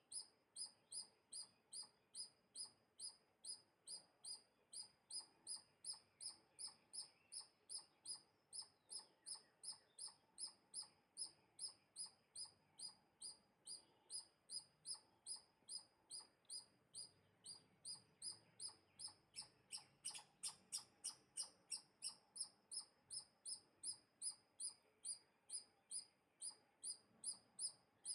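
A small bird chirping over and over at a steady pace, about two short, high, slightly falling chirps a second, with a louder, busier flurry of notes about two-thirds of the way through.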